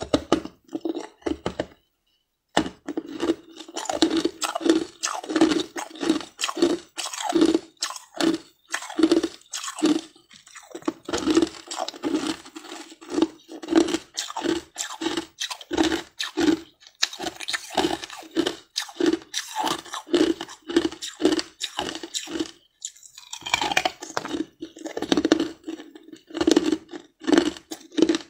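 Ice being crunched and chewed close to the microphone: an even run of crunches, about two a second, with a short break about two seconds in and another late on.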